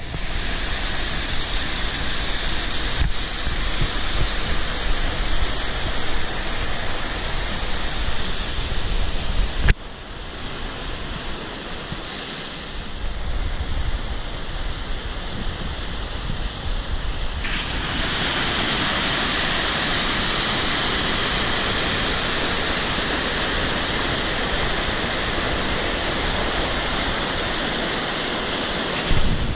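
Steady rush of water from a waterfall and the rocky stream below it, with wind rumbling on the microphone. The sound changes abruptly a few times: it drops in level about a third of the way in, and a little past halfway it turns brighter and fuller.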